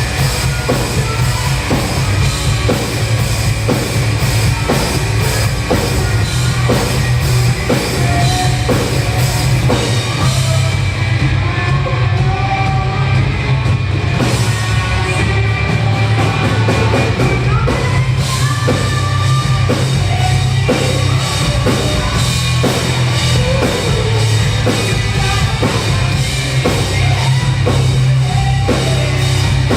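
Rock band playing live and loud: distorted electric guitars, heavy bass and a drum kit keeping a steady beat. The cymbals drop out for a few seconds just before the middle, then come back in.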